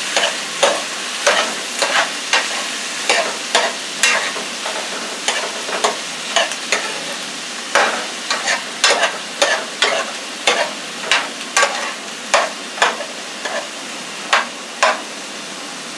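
Diced red peppers and onions sizzling in a frying pan with a steady hiss. A utensil scrapes and knocks against the pan in irregular strokes, about once or twice a second, as the vegetables are stirred.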